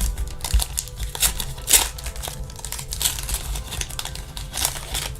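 Trading-card pack wrapper being crinkled and torn open by hand, a steady run of irregular crackles.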